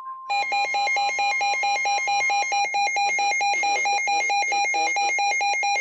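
A weather radio receiver's alert alarm starts about a third of a second in: loud, rapid, evenly pulsed beeping that signals an incoming flash flood warning. Underneath it, the broadcast's steady warning alarm tone carries on for the first couple of seconds and then stops.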